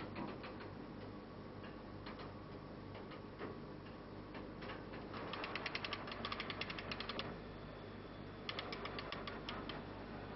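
Metal ratchet clicking: a few single clicks, then two quick runs of about ten clicks a second, over a faint steady hum.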